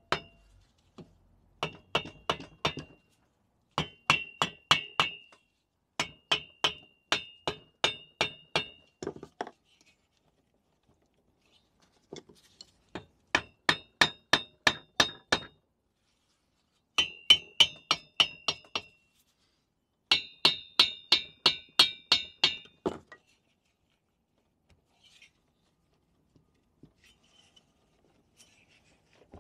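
Mallet tapping the finned cylinder head of a Minarelli V1 50cc engine in six quick bursts of sharp taps, each with a short metallic ring, to free the head from the cylinder once its four bolts are out. The tapping stops several seconds before the end, leaving only a few faint knocks.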